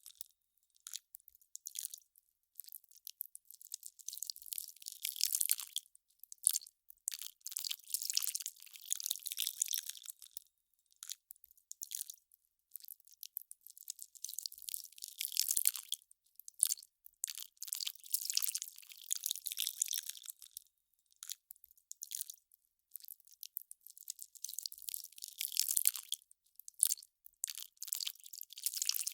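Melting ice crackling and popping: clusters of fine, sharp crackles a second or two long, separated by short gaps, all high-pitched with no low end.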